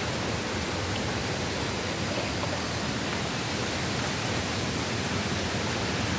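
Steady rushing of wind and light rain as a hurricane's wind builds, with wind buffeting the microphone in a low rumble.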